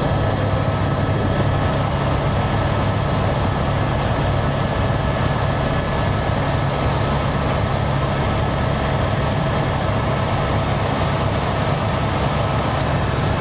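Helicopter in flight heard from inside the cabin: a steady, heavy drone of rotor and turbine with a few constant whining tones above it.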